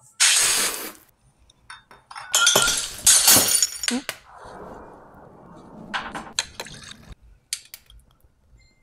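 Clinks and clatters of kitchenware, a metal bowl on a stone counter among them, in several short bursts with a softer stretch of noise in the middle.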